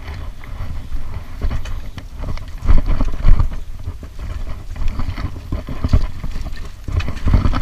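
Mountain bike rattling and thudding over a rough, rutted dirt trail, with irregular knocks over a steady low wind rumble on the microphone. The hardest knocks come about three seconds in.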